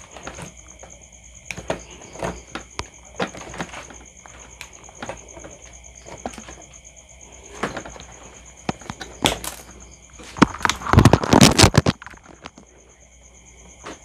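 Pliers working electrical wire in a plastic junction box: scattered clicks and small knocks of the tool against wire and plastic, with a quick, louder flurry of clicks near the end.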